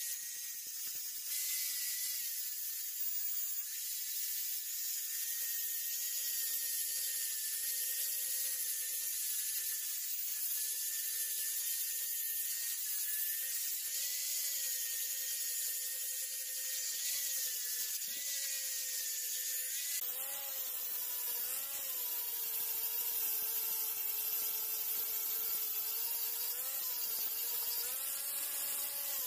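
Electric angle grinder with a 100-grit (P-100) abrasive disc running against a rusty knife blade: a steady motor whine over a hiss of abrasive on metal, the pitch dipping slightly now and then as the disc is pressed in. About two-thirds of the way through the whine takes on a fuller, richer tone.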